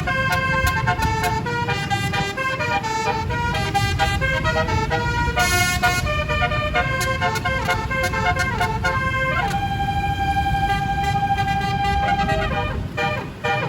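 Basuri 'telolet' multi-tone bus horn playing a quick tune of stepping notes, then sliding up into one long held note of about three seconds near the end, over a steady low rumble.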